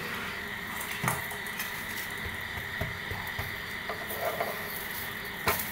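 Egg omelette sizzling softly and steadily in coconut oil in a pan, nearly cooked, with a couple of light taps of the spatula against the pan.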